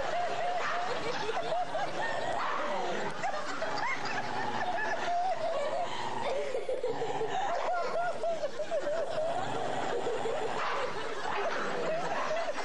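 A dog growls and snarls as it bites at its own hind leg, a continuous wavering sound. Stifled snickering laughter runs alongside it.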